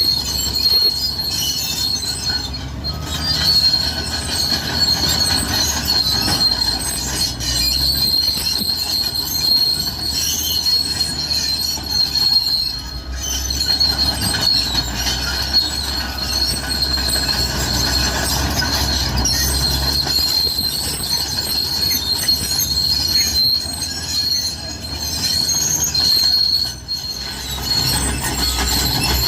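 Cat D6R bulldozer working, its diesel engine running low under a steady high-pitched squeal from the steel crawler tracks.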